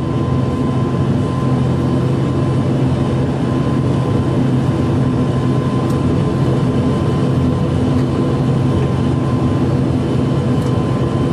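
Cabin noise of an ATR 72-500's twin Pratt & Whitney PW127 turboprops and propellers, heard from a seat beside the engine while the aircraft taxis. It is a loud, steady drone with a constant whine above it.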